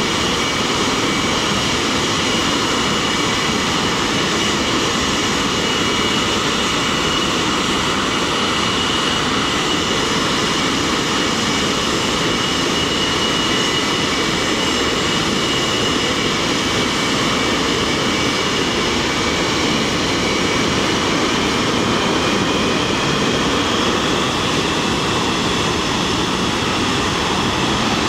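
English Electric Lightning's twin Rolls-Royce Avon turbojets running steadily on the ground, loud, with a high-pitched whine that edges up in pitch near the end.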